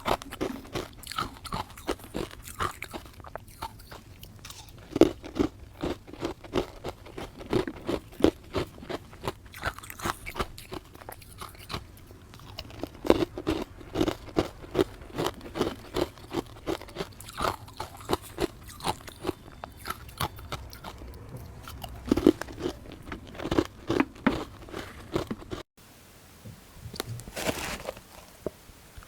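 Close-up crunching and chewing of frozen ice dusted with matcha powder: rapid, irregular crunchy bites several times a second. The sound drops off suddenly about 26 seconds in, and a few quieter crunches follow near the end.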